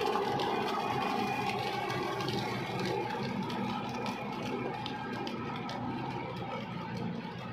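Kubota MU5501 tractor's four-cylinder diesel engine running steadily under load as it drags a working rotavator through deep, sticky wet mud, growing slightly fainter as the tractor moves away.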